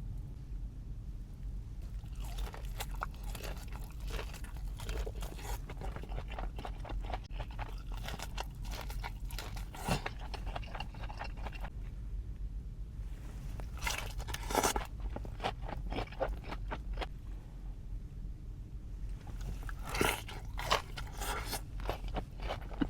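Close-up crunching and chewing of crispy fried chicken wings, in bouts of crackly bites with short pauses between them and a few sharper bites along the way.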